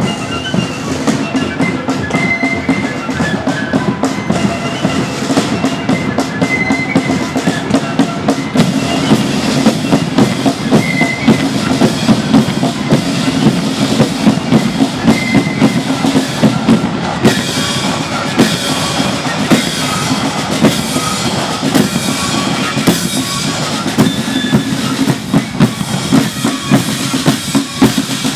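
Marching flute band playing on the march: flutes carry a tune over a steady beat of side drums and bass drum.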